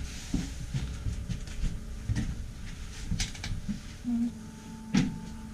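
Irregular knocks, scuffs and clicks from people moving about a small cluttered room, over a low rumble of handling noise.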